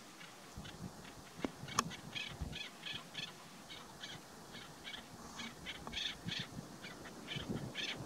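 Chukar partridges calling: quick runs of short, repeated notes, several a second, starting about two seconds in and going on to the end, with a sharp click just before they begin.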